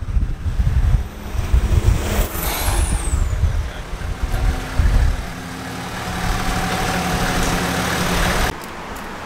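Turbocharged 1HZ straight-six diesel of a Toyota LandCruiser 105 rumbling unevenly as it moves off, with a high whistle sliding down in pitch about two seconds in. It then settles into a steady idle hum, which drops off sharply near the end.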